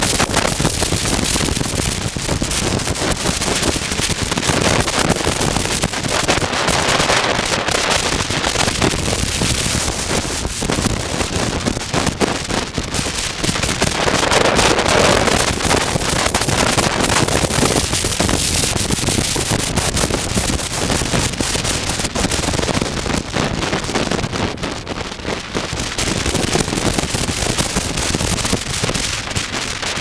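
Wind buffeting the microphone of a helmet camera on a moving motorcycle: a loud, crackling rush that swells and eases.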